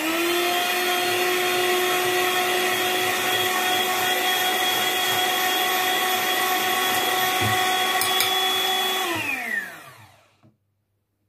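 Electric hand mixer running steadily at a constant high whine, its beaters whipping instant coffee, sugar and cold water into foam. About nine seconds in it is switched off and the whine drops in pitch as the motor winds down to silence.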